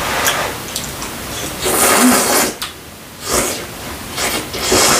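Kalguksu noodles being slurped up from a bowl of clam broth in several loud, noisy slurps. The longest comes about two seconds in.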